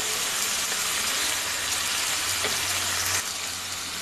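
Oil sizzling steadily around whole small fish frying in a pan as a masala paste goes on top. The sizzle drops a little in level about three seconds in.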